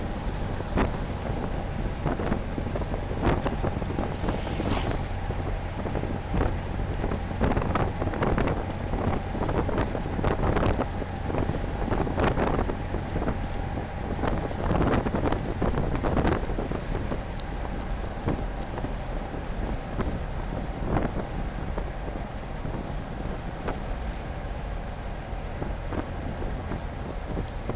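A car driving along, heard from inside the cabin: steady engine and road noise with a low hum, wind buffeting the microphone, and scattered thumps and crackles, thickest in the first half.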